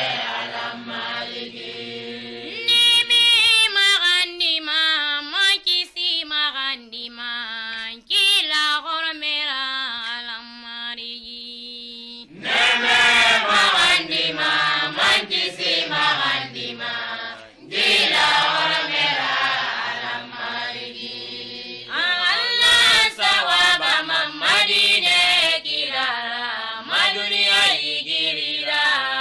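Islamic devotional chanting: sung voice in long, wavering held notes, phrase after phrase, with short dips between phrases.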